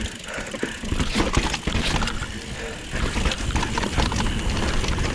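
Mountain bike riding down a rough dirt trail: tyres crunching over dirt and roots, the bike rattling and knocking, with wind rumbling on the microphone. It gets louder about three seconds in.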